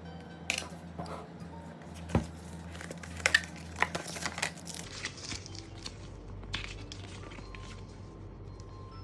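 Packaging being handled during a phone unboxing: plastic wrap crinkling and tearing, with sharp clicks, over quiet background music. The handling sounds thin out about five seconds in.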